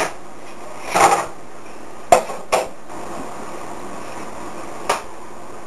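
Four separate short knocks and clatters of kitchenware spread over a few seconds, with a steady background hiss underneath.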